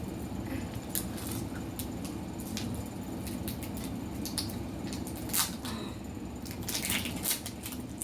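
Scattered crinkles and clicks of small plastic wrappers and toy accessories being handled and unwrapped, over a steady low room hum.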